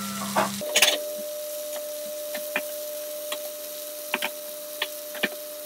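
Mushrooms and spinach frying in oil in a pan: a light sizzle with scattered sharp pops of spitting oil, the loudest cluster about a second in.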